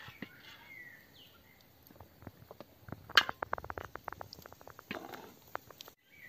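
Metal spoon clinking and scraping against a stone-coated frying pan while spooning sauce and prunes onto a roast duck. A sharp clink about three seconds in is followed by a quick run of light taps, and there is a brief scrape near the end.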